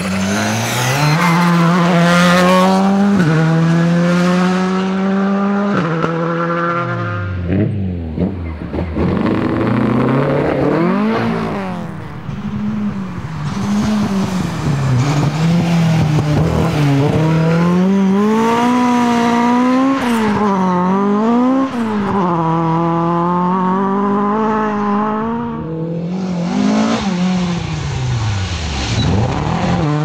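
Rally car engines revving hard: the pitch climbs and drops sharply at upshifts in the first few seconds, falls away as a car slows for a corner, then rises and falls repeatedly with throttle blips and acceleration out of the bends.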